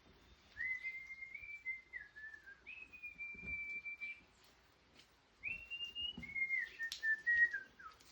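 A person whistling a slow tune: long, clear held notes that step up and down in pitch, in three phrases with a pause of about a second in the middle.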